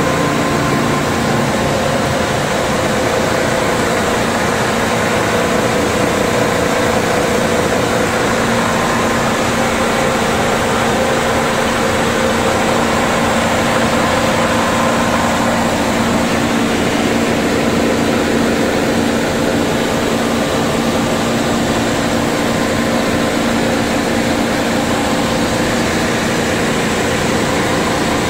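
Machinery of a panko bread crumb production line running: a steady, loud hum and hiss of motors and conveyors, with several steady tones held throughout.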